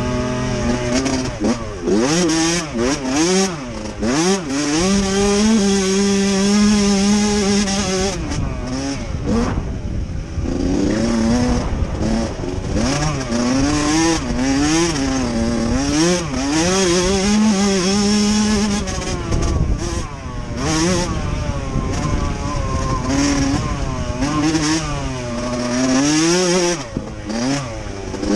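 Motocross dirt bike engine heard up close from the bike itself, revving up and down again and again through the gears. It holds a steady pitch for a few seconds, then the throttle is chopped briefly about nine seconds in before the revving picks up again.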